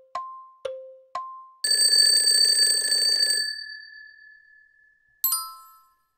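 Countdown-timer sound effect: a clock ticking in alternating high and low tocks about twice a second, then a bell alarm ringing loudly for nearly two seconds as time runs out and fading away on a lingering tone. About five seconds in, a short bright chime sounds for the answer reveal.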